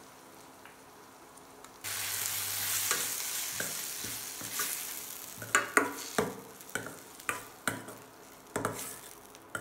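Onion-tomato masala with red chilli powder frying in a steel kadai, the sizzle starting suddenly about two seconds in. A steel spoon stirs it, scraping and clinking against the pan several times in the second half.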